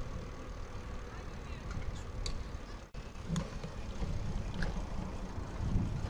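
Wind buffeting the microphone of a camera riding on a moving bicycle, a steady low noise with tyre noise on asphalt, plus a few faint high clicks.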